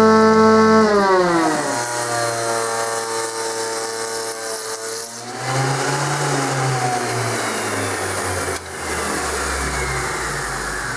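Electric motors of a router table and its dust-extraction vacuum running after a cut: the motor's pitched hum drops in pitch about a second in as it winds down, then gives way about five seconds in to a steady rushing hum that fades off near the end.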